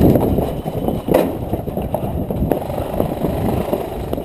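Footsteps crunching on gravel with gear rattling and rubbing on the camera wearer as he moves, a jumble of irregular short knocks, with a sharper knock about a second in.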